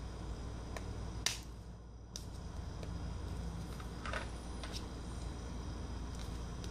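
Sharp plastic clicks as the clips of a Samsung Galaxy Note 2's back frame snap free under a prying fingernail: a loud click about a second in, another near two seconds, a small cluster around four seconds and a few fainter ticks.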